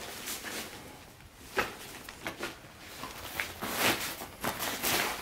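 Handling noise from a ripstop nylon stuff sack holding a folded aluminium-framed cot: fabric rustling with a sharp knock about one and a half seconds in and louder rustles near the end.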